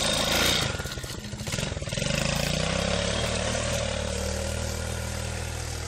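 Small quad bike's engine revving as it pulls out of the mud and drives off. The engine note rises about two seconds in, holds steady, then falls away near the end as the quad moves off.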